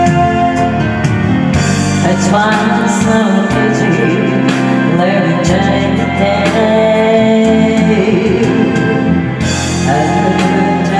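A woman singing karaoke into a handheld microphone over a backing track.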